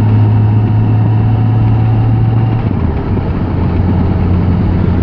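Motorcycle engine running steadily under way, with a low hum over a steady hiss. The engine note shifts a little about halfway through.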